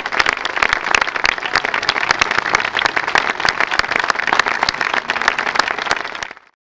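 An audience applauding, many hands clapping steadily, cut off abruptly about six seconds in.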